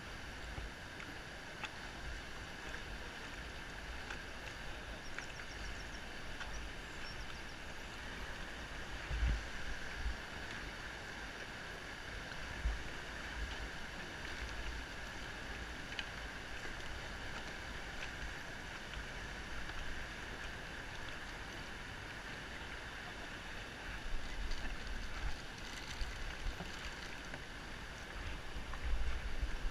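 Steady rushing of a river rapid's white water, with irregular low thumps of wind buffeting the microphone now and then.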